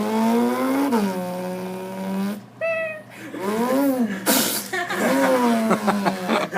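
A boy's vocal imitation of a Lamborghini: his voice rises and falls in pitch like an engine revving through the gears. About two and a half seconds in there is a short high cat yowl, the car running over the cat, and then the revving goes on.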